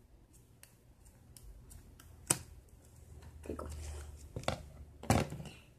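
Scissors and a rubber balloon being handled: scattered small clicks and rubbing, with a sharp click about two seconds in, a low rustle a second later, and a few louder clicks near the end.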